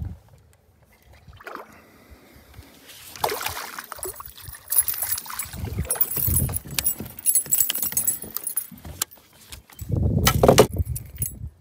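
Rattling and clicking of a metal spinnerbait and a small hooked bass knocking against a plastic kayak deck as the fish is landed, starting about three seconds in, with low thumps of handling, loudest near the end.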